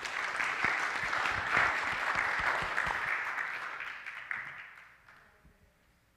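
Audience applauding, a dense patter of hand claps that fades and dies away about five seconds in.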